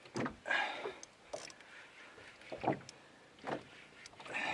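Water slapping against the hull of a small fishing boat, a few separate slaps, with short bursts of hiss in between.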